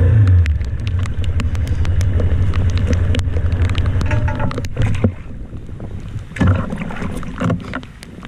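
Wind buffeting the microphone in heavy rain, a low rumble with many sharp raindrop ticks; the rumble drops away about five seconds in and returns in short gusts.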